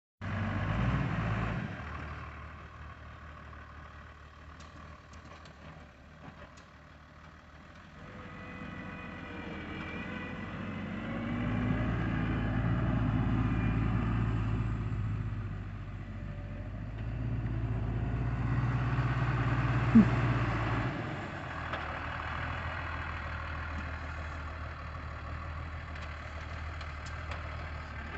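New Holland T6050 tractor's diesel engine running, swelling louder twice under load as its front loader lifts and carries round straw bales. A short sharp knock comes about twenty seconds in.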